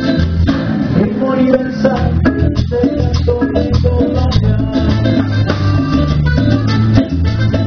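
Live Latin band playing a steady dance rhythm, with guitars over congas and timbales.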